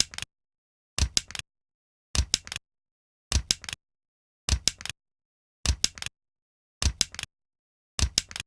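A stapler pressed again and again, a little less than once a second. Each press is a short cluster of two or three sharp metallic clicks as the staple is driven, with dead silence between presses.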